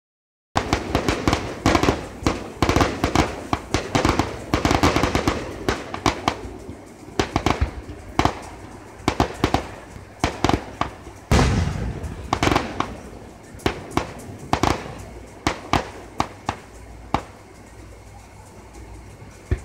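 Fireworks display: aerial shells bursting in quick volleys of sharp bangs, with one deep boom about eleven seconds in, the bangs growing sparser and fainter toward the end.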